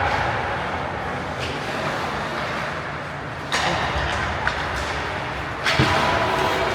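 Ice hockey rink game ambience: a steady murmur of the arena, with two sudden scraping hisses, about halfway through and near the end.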